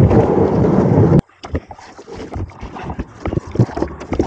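Plastic kayak hull scraping and grinding over a rocky bank as it slides into the water, loud and rough for about a second before cutting off abruptly. After that come quieter scattered knocks and clicks of gear and a net being handled in the kayak.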